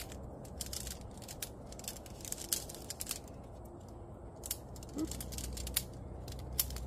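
Shock-corded aluminium tent pole sections being unfolded and handled, clicking and rattling together in a string of light, irregular metallic clicks.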